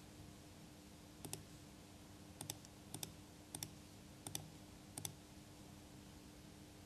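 Computer mouse clicking about six times, each a quick press-and-release pair, over a faint steady hum.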